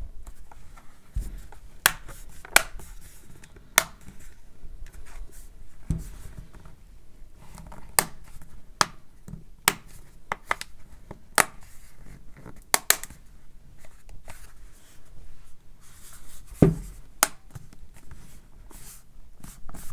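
Plastic back cover of an Amazon Kindle Keyboard being pressed on by hand, its clips snapping into place one at a time. A string of sharp clicks at irregular intervals, with soft rubbing and handling noise between them.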